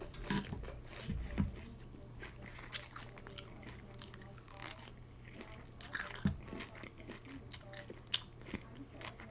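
Close-up eating of pho: chewing and crunching of crisp bean sprouts, with several sharper crunches scattered through.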